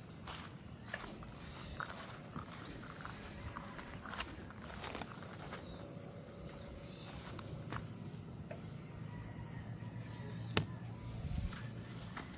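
Steady high-pitched insect chirring, with scattered light clicks and knocks and one sharper click near the end.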